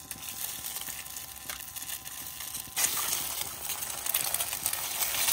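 Hot cooking oil in a wok over a wood-burning camp stove sizzling lightly, then much louder and steady from about three seconds in as a cracked egg drops in and starts to fry. A faint steady whine sits underneath.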